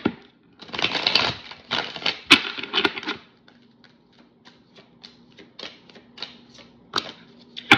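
Tarot deck shuffled by hand. For the first three seconds or so the cards clatter against each other densely, then lighter, sparser clicks and taps follow as cards are slid and dropped into the pile.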